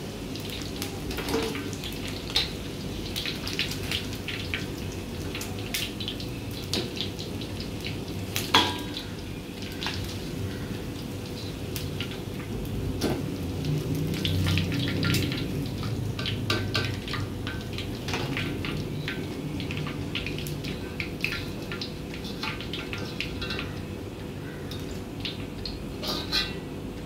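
Chicken pieces frying in hot oil in a wok, the oil crackling and popping steadily, with clinks and scrapes of a metal spoon and slotted spatula against the wok as the fried pieces are lifted out. A sharper knock of the utensil on the wok comes about eight and a half seconds in.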